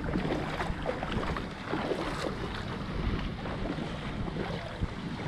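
Wind buffeting the camera's microphone in an uneven low rumble, over shallow seawater sloshing.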